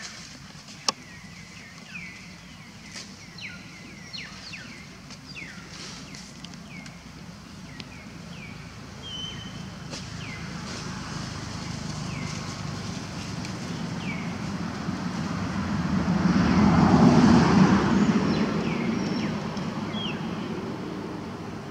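A motor vehicle passing, its low rumble swelling to a peak near the end and then fading. Short downward chirps repeat every second or so throughout, and there is one sharp click about a second in.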